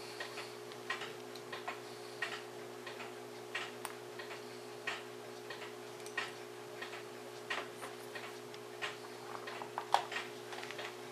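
Faint, regular ticking of a mechanical clock, the ticks coming in close pairs about every second and a quarter, over a steady low hum.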